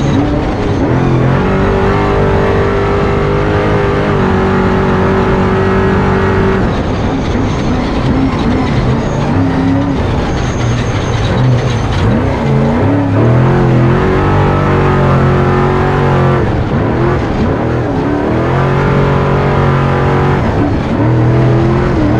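Off-road truck engine driven hard, holding high revs for several seconds at a time. The revs drop and climb again several times.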